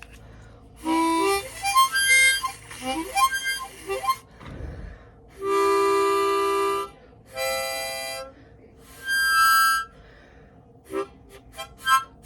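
A harmonica is played. There is a run of short notes, then one long held note about midway, two shorter held notes, and a quick flurry of short notes near the end.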